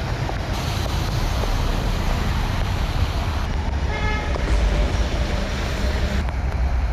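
Road traffic on a flooded street: cars driving through standing water, a steady noise of tyres in water and engines. A car horn gives a short toot about four seconds in.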